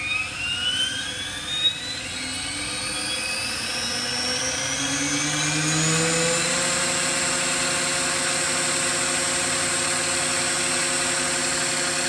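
SAB Goblin electric RC helicopter spooling up on its brushless motor: a whine with the rotor head rising steadily in pitch over about six seconds on a slow soft-start, then holding steady at full headspeed. A single sharp tick sounds about a second and a half in.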